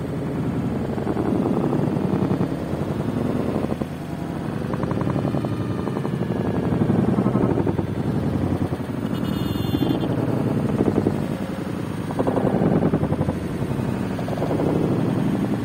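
Seafront ambience: wind buffeting the microphone over the wash of sea waves against the concrete tetrapods, a rumbling noise that swells and eases every couple of seconds.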